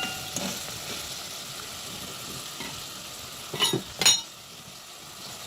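Seasonings sautéing in a hot pan, a steady sizzle. About three and a half seconds in, a cooking utensil clinks twice against the pan.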